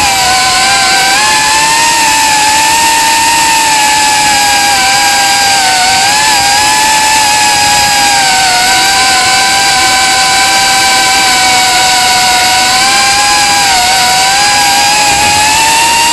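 Brushless motors of a Reptile Cloud 149 V2 FPV quadcopter whining steadily at a fairly high pitch that wavers slightly up and down with the throttle. The owner calls it a strange motor sound.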